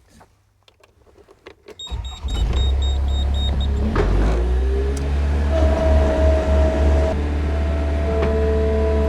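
Skid steer loader engine starting about two seconds in, with a run of short high beeps, then running steadily. From about five and a half seconds a steady whine joins it as the hydraulics are worked.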